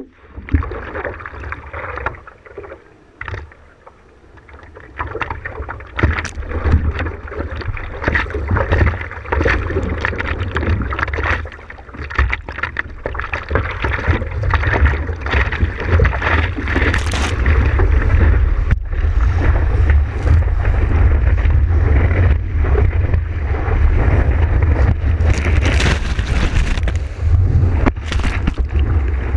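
Surfboard paddling: hands stroking the water and seawater sloshing and splashing against the board, heard close on a water-level microphone with a heavy low rumble of wind and water. It is quieter for the first few seconds, and near the end a breaking wave's whitewater washes over the board.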